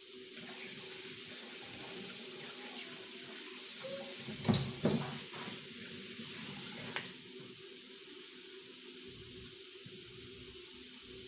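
Kitchen tap running into the sink while hands are washed, with a couple of knocks about halfway through; the water is turned off about seven seconds in.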